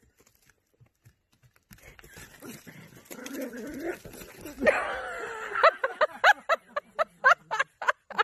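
A small dog barking in quick, high yaps, about three a second, starting a little past the middle. Before that comes a rising rustling noise with a brief, voice-like pitched sound in it.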